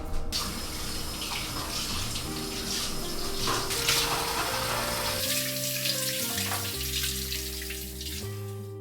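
Water running from a kitchen tap with a steady rush that starts suddenly and fades out near the end, over soft background music.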